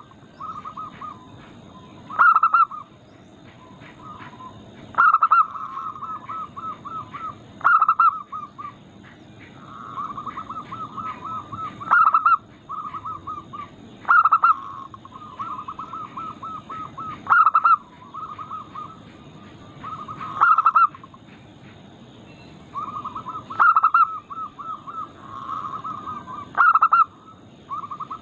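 Zebra doves (perkutut) cooing: rapid trains of soft, rhythmic cooing notes, punctuated by a louder note every two to three seconds.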